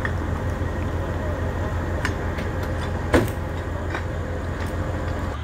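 Heavy diesel truck engine running at a steady low idle, with a few light knocks and one sharp knock about three seconds in.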